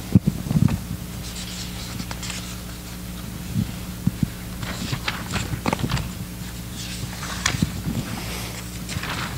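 Room tone: a steady low electrical hum with scattered faint clicks and rustles.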